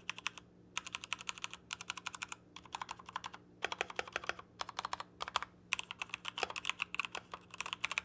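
Typing on a Redragon K617 Fizz, a 60% mechanical keyboard with an all-plastic case and Outemu switches: rapid keystroke clicks in bursts separated by short pauses.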